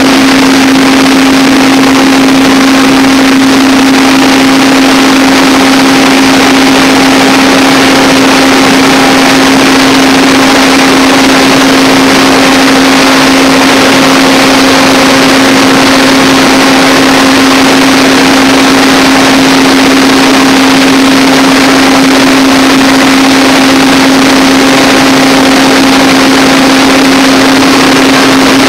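Large diesel generator set running steadily at constant speed, very loud, with a steady hum over the engine's noise and no change in pitch.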